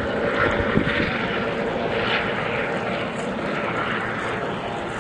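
Coast Guard HH-65 Dolphin helicopter flying over the airfield at a distance, its rotor and engine drone steady throughout.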